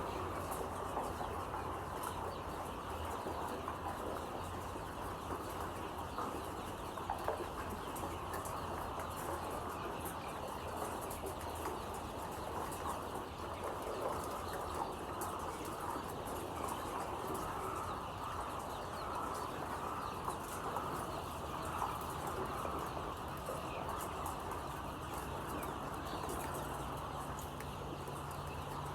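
A flock of layer chickens calling together, a dense, continuous chatter of many overlapping clucks and peeps, over a steady low hum.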